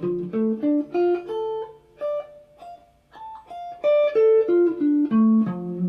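Guitar playing a D minor arpeggio, single plucked notes one after another climbing up the neck and then stepping back down.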